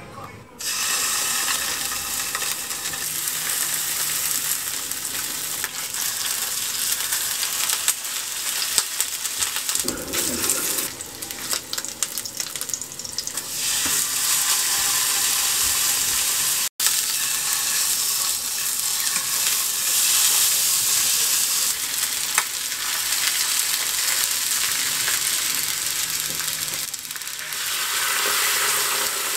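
Pork belly and a netted beef roast searing in a hot frying pan, a steady loud sizzle. Near the end boiling water is poured into the hot pan, hissing over the browned meat.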